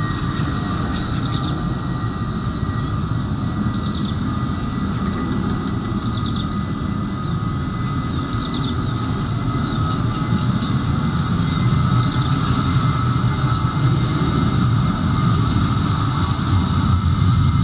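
Boeing 737's jet engines running as the airliner rolls along the runway: a steady rumble with held high whining tones, growing louder over the last several seconds. Short faint chirps repeat about every two seconds.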